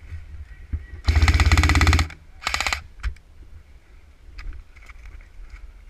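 Airsoft gun firing on full auto: a rapid burst of about a second, then a shorter burst half a second later.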